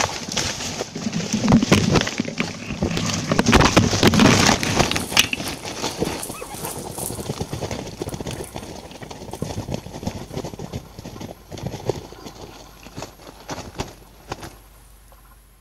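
Irregular crackling and rustling of leaves and twigs in dense undergrowth, loudest in the first few seconds and then fading away.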